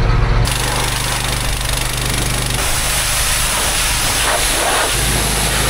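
Pressure washer spraying a chisel plow: a steady hiss of the water jet over a steady engine hum, starting abruptly about half a second in.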